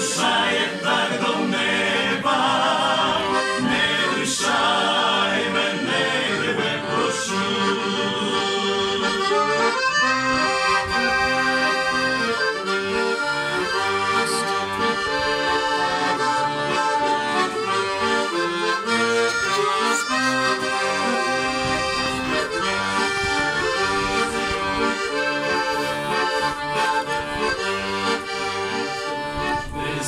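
Accordion playing an instrumental interlude of the hymn melody between verses: held chords under a moving tune.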